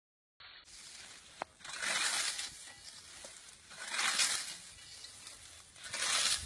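Scythe fitted with a wooden grain cradle cutting through dry standing wheat: three swishes of the blade through the stalks, about two seconds apart.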